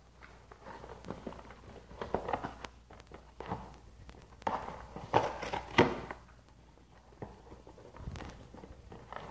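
A boxer dog biting and tearing a cardboard box: irregular crunching and ripping of the cardboard, in clusters, loudest about five to six seconds in.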